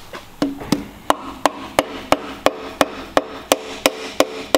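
Hammer tapping steadily on metal, about three blows a second, each with a short ringing note, driving on a stuck part of a seized engine to free it.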